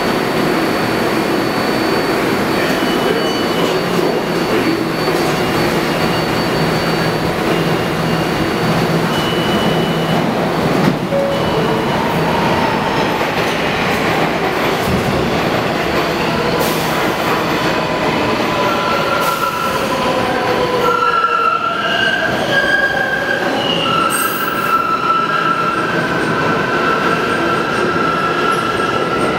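New York City subway train of R142/R142A cars pulling out of the station. Steady train noise gives way, past the midpoint, to several whining tones from the propulsion and wheels as it accelerates away, with wheel squeal.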